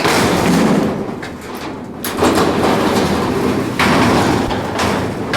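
Manually operated doors of a Montgomery freight elevator sliding along their tracks as they are worked by hand, in three long noisy strokes.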